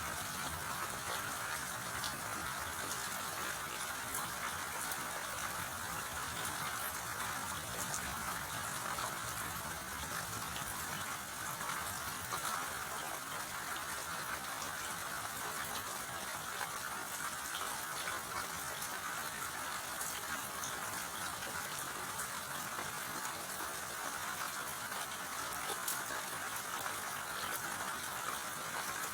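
Steady rain falling: an even hiss with scattered sharp ticks of individual drops, and no thunder.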